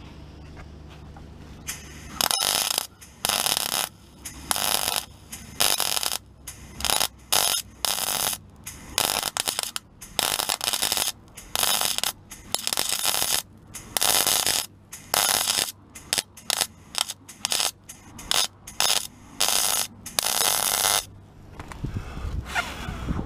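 MIG welder laying heavy tacks along a butt-welded floor patch on a car's underside: about two dozen short bursts of arc crackle, each a fraction of a second to about a second long, starting about two seconds in and stopping shortly before the end. A low rumble comes up near the end.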